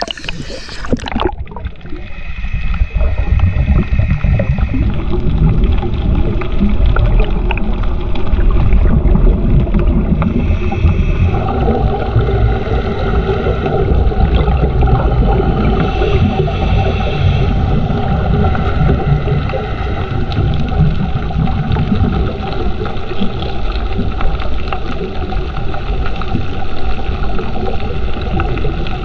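Underwater sound picked up by a diving camera: a dense, muffled low rumble with crackle and bubbling, carrying several faint steady humming tones. A brief splash and hiss in the first second as the camera goes under from the surface.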